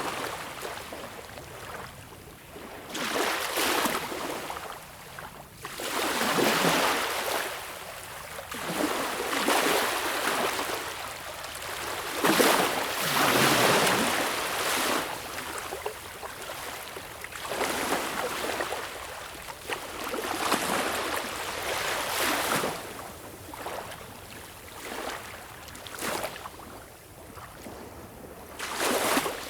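Small, calm waves lapping and breaking on a beach shore, each one a swelling hiss of foam that fades away, arriving every two to three seconds.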